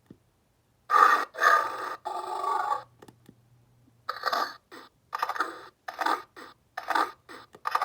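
Electronic dinosaur roar from a Lost World: Jurassic Park Bull T-Rex toy. About a second in, one roar runs for roughly two seconds. After a brief pause it is followed by a string of about eight short, clipped bursts.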